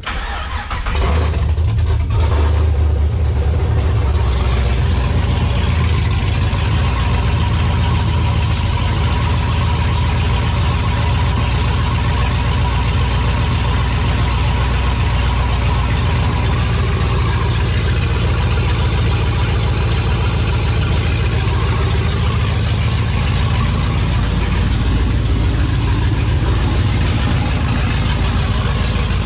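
LS V8 engine in an 80 series Land Cruiser being started: it cranks and catches within the first couple of seconds, then runs steadily.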